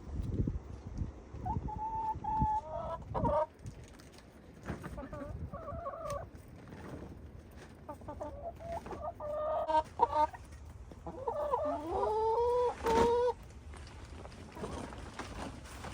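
Chickens clucking and calling in several short bouts, with a longer call about two-thirds of the way in that rises in pitch and then holds.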